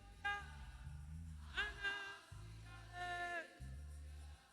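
Soft gospel worship music: low sustained chords, with a few faint sung notes about a second and a half in and again about three seconds in.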